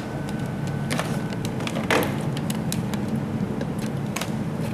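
Scattered light clicks and taps from handling multimeter test probes and wires on a rice cooker's heating-plate terminals, the sharpest about two seconds in, over a steady low background hum.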